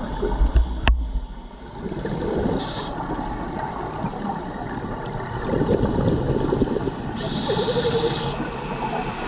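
Scuba diver's regulator breathing heard underwater: short hissing inhalations and a gurgling rush of exhaled bubbles about six seconds in, over steady underwater noise. A sharp click about a second in.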